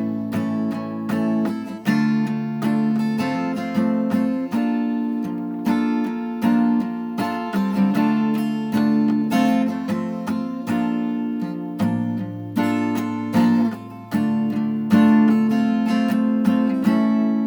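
Acoustic guitar played solo without singing: chords strummed and plucked in a steady rhythm, each attack ringing out and decaying.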